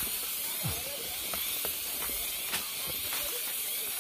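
Steady high-pitched hiss of insects droning in the forest, with scattered light clicks and faint distant voices.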